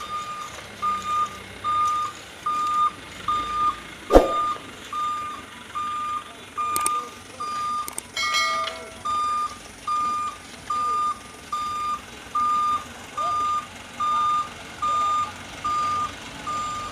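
Truck reversing alarm beeping one high tone at an even pace, a little more than once a second. A single sharp knock about four seconds in is the loudest sound, and a short ringing clank comes just past the middle.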